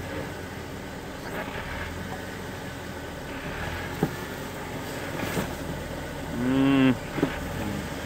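Jeep Wrangler Rubicon engine running low and steady as it crawls over boulders, with a sharp click about four seconds in. Near the end comes a short, loud pitched sound with many overtones, the loudest thing heard.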